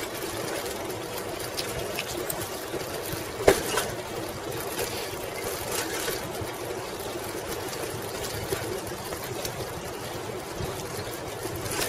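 1995 Schwinn Classic Cruiser bicycle rolling steadily along a paved path: a continuous rumble of tyres on asphalt and rattle from the bike, with faint ticks and one sharp click about three and a half seconds in.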